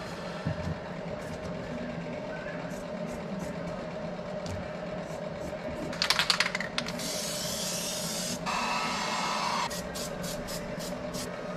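An aerosol can of spray adhesive is shaken with a quick rattle, then sprayed in two hissing bursts of about a second and a half each. Light clicks and taps come before and after, over a steady hum.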